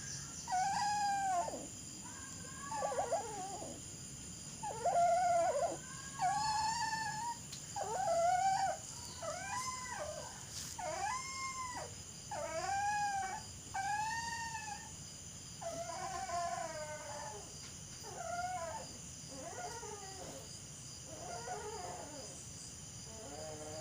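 A dog howling and whining in a long run of short, arching cries, one every second or so, growing fainter in the later part.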